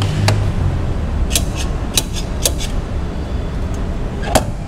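A series of short, sharp plastic clicks and taps from an orange juice vending machine's tap-operated straw dispenser as a straw is tapped out and taken, the sharpest click near the end, over a steady low rumble.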